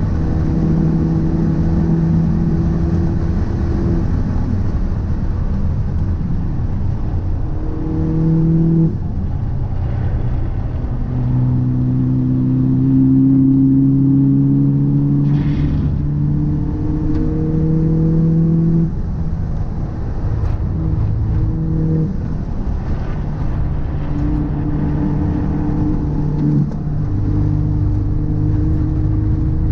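A car being driven, with steady low road and engine rumble and a humming drone that rises and falls in pitch with speed, dropping out and returning several times. The drone is the abnormal noise that the owner suspects comes from a drive shaft or a wheel hub.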